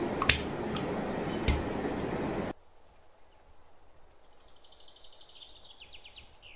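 A steady hiss of noise with two sharp clicks about a second apart cuts off abruptly about two and a half seconds in. Then comes low room tone with a small bird faintly trilling and chirping in the background.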